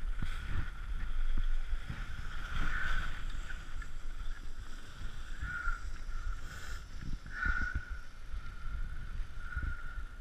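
Skis scraping and sliding on packed snow, with low rumbling from wind and movement on a chest-mounted action camera. A faint steady whine runs underneath.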